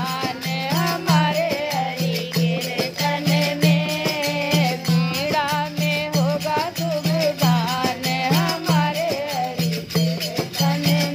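A Hindu devotional song to Hanuman: a woman's voice singing a winding melody over a hand-played dholak, its low drum strokes keeping a steady, even beat, with a rattling percussion marking the rhythm on top.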